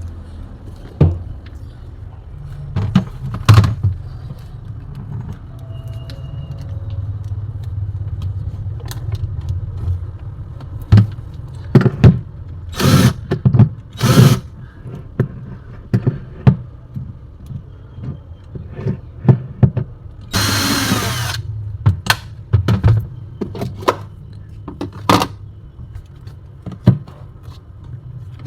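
Refrigerator inner panel being taken apart by hand: scattered clicks and knocks of plastic parts and screws, with a short whirring burst of a power screwdriver about twenty seconds in. A steady low hum runs underneath.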